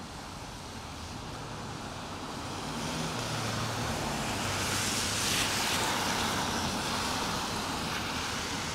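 A car driving by on the wet street: its tyre hiss on the wet pavement swells from about three seconds in, peaks around the middle with a low engine rumble, then eases off, over a steady hiss of rain.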